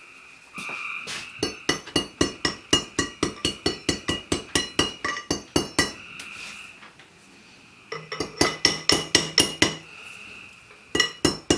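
Rapid hammer taps on ringing steel, about five a second, in two runs with a pause between and a few more taps near the end. This is a bearing race being driven onto the drill-press quill, a tight press fit that is reluctant to seat.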